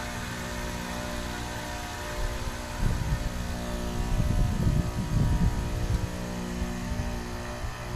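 Outdoor unit of a 2025 Carrier Sentry heat pump running, a steady hum with an even whirring hiss. A louder low rumble comes in from about three seconds in and eases off about three seconds later.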